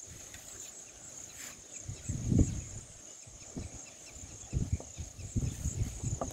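A steady high-pitched chirring of insects in the grass, with low thumps and rumbles about two seconds in and a run of them in the second half.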